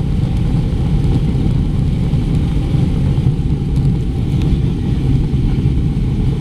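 Steady, loud low rumble of an Airbus A330-200 jet airliner heard from inside the passenger cabin: engine and airframe noise around the takeoff.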